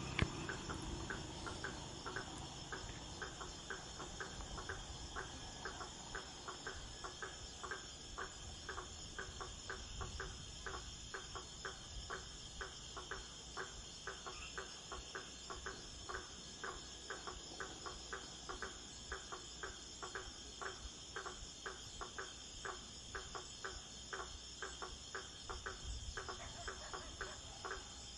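Insects trilling steadily and high-pitched, over a regular ticking about twice a second.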